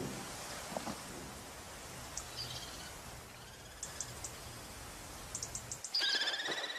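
Outdoor ambience with a steady hiss and a few short series of quick, very high chirps. About six seconds in, a shrill, rapidly wavering trilling call from common kestrels at the nest begins.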